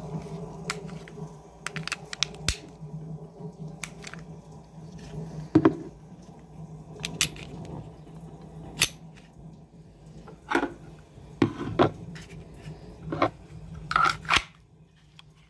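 Sig Sauer P365 pistol being handled: scattered clicks, taps and scrapes of the gun in the hands, the loudest about five and a half seconds in and about nine seconds in. A steady low hum runs behind and cuts off near the end.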